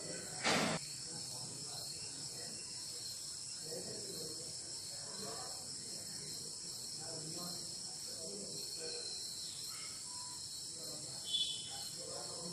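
Steady high chorus of chirping crickets. About half a second in there is a short, loud noise, and a smaller brief sound comes near the end.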